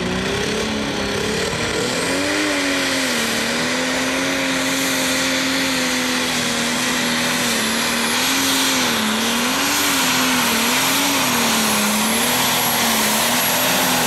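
John Deere Pro Stock pulling tractor's single-turbo diesel engine at full throttle during a pull. Its pitch climbs in the first couple of seconds, then holds high while wavering up and down as the load and wheel speed change. A high steady whistle runs over it.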